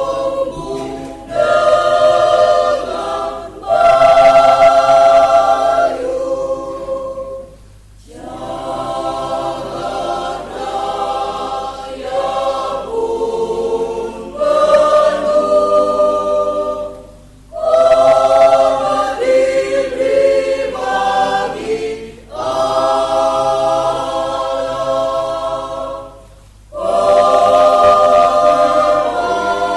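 Mixed church choir of men and women singing a hymn in sustained chords. The phrases last several seconds each, with brief breaks between them.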